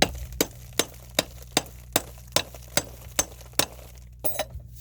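Ratchet wrench clicking steadily, about two and a half clicks a second, as a bolt on a Subaru Impreza's rear brake caliper bracket is turned, with a short squeak near the end over a steady low hum.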